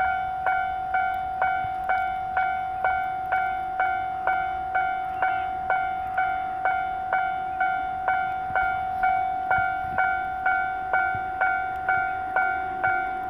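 Railway level-crossing warning bell ringing steadily at about two strikes a second, each strike a bright two-tone ding that dies away before the next. It signals an approaching train. Near the end a low rumble of the approaching train rises faintly underneath.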